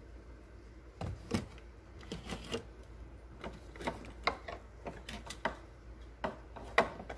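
A run of irregular sharp clicks and light knocks from kitchen items being handled, starting about a second in, with the loudest knock near the end.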